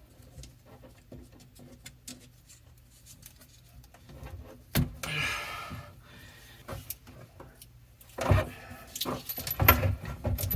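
Small metal clicks and jingling of faucet parts and supply-line fittings being handled, with a short rattling scrape about five seconds in and a burst of louder clicks and knocks near the end.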